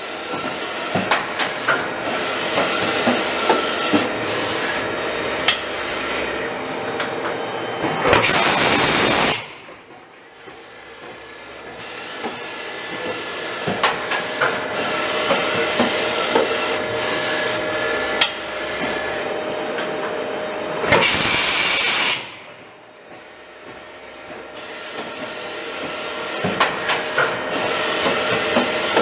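Matsuura MC-510VG CNC vertical machining center running under power, its table traversing: a mechanical whine with many small clicks and rattles that builds over several seconds. A loud hiss lasting about a second comes about a third of the way in and again about three-quarters through, and each time the machine goes quieter before building up again.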